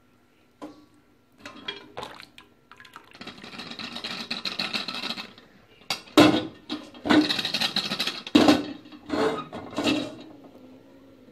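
Boiled turnip slices and their hot water tipped from a steel pot into a perforated steel colander. A few light knocks come first, then a steady rush of pouring water about three seconds in, then loud clanks of the metal pot against the colander mixed with splashing and draining.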